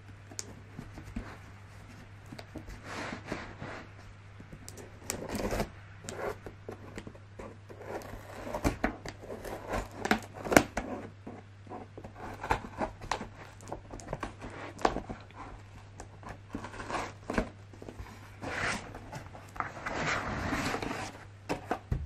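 Scissors slitting packing tape on a cardboard box, with tape ripping and cardboard flaps scraping as the box is pulled open: an irregular series of scratchy rips and sharp clicks, with a longer rip near the end.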